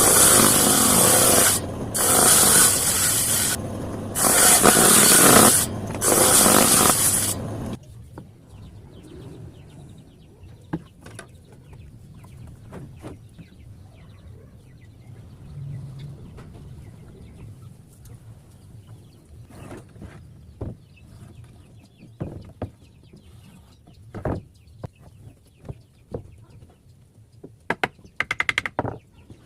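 A power tool running in four short loud bursts for about the first seven seconds, then scattered light knocks and taps of work on wood, with a quick run of clicks near the end.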